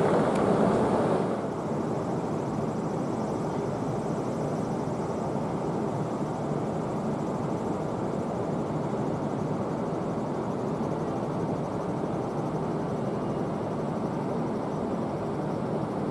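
Steady rumbling noise of a train at a station platform. It is a little louder for about the first second, then drops slightly and holds even.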